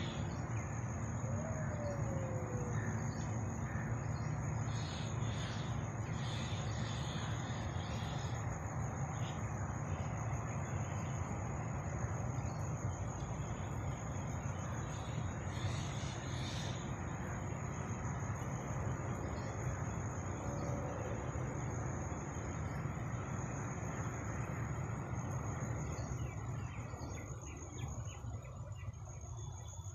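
Insects trilling in one steady high note, over a steady low background rumble that fades somewhat near the end.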